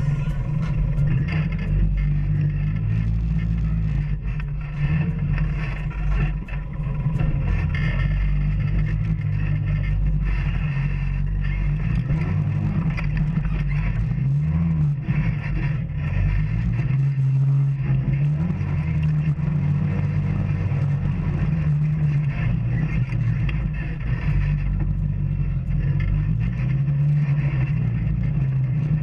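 Off-road vehicle engine running under way on a rough trail, its pitch rising and falling as the throttle changes, with frequent knocks and rattles throughout.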